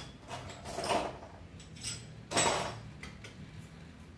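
Metallic clinks and clatter of tools and bicycle parts being handled while working on a mountain bike's crankset: a few short knocks and scrapes, the loudest about two and a half seconds in.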